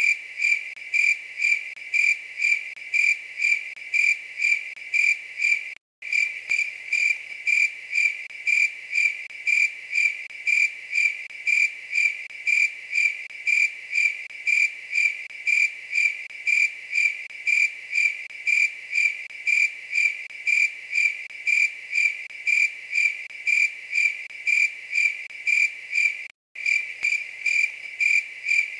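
A cricket chirping steadily at a high, clear pitch, about two chirps a second. The sound cuts out completely for a split second twice.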